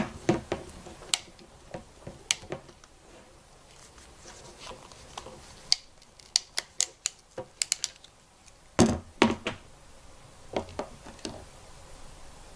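Hand crimping tool crimping a contact onto a primary cable: scattered clicks, a quick run of about ten clicks in the middle, then a couple of louder knocks as the tool and cable are handled.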